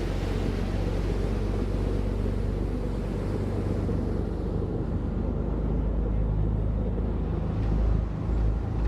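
Tour boat's engine running steadily under way, with a rush of wind and water over it that thins out about halfway through; some low buffeting near the end.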